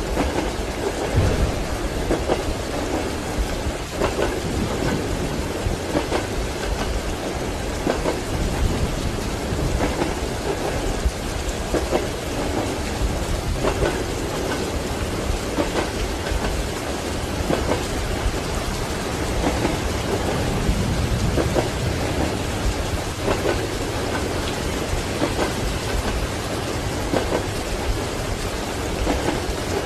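Steady rain with rumbling thunder, over the clickety-clack of train wheels knocking on the rail joints, as heard from inside a train compartment.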